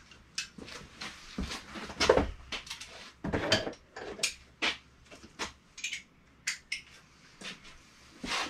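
Metal sockets and hand tools clinking and clattering in irregular knocks while a half-inch socket is picked out at a workbench.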